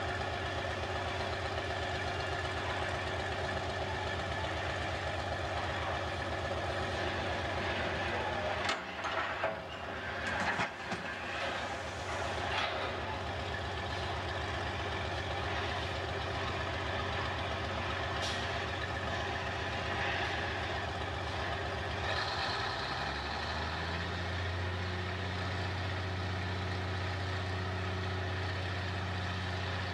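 Cummins 220 diesel in the upper of a Lima Model 65-T cable shovel working as a dragline, running steadily, with a few clanks and knocks about a third of the way in. Its low note changes and grows stronger about three-quarters of the way through.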